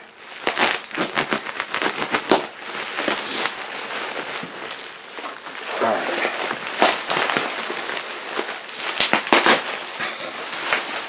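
Plastic packaging wrap being pulled off and handled: dense crinkling and crackling with many sharp snaps, loudest in the first two seconds and again about nine seconds in.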